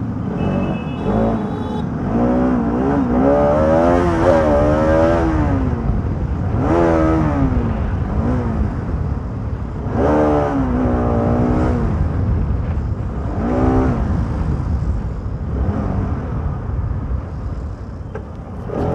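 Motorcycle engine revving up and down in several surges while riding, over steady road and wind noise.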